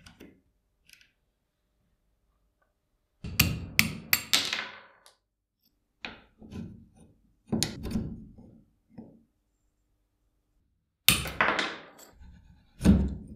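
Cast-iron parts of an old saw blade tooth setter knocking and clinking as the machine is taken apart by hand: several short clusters of metal knocks with quiet gaps between.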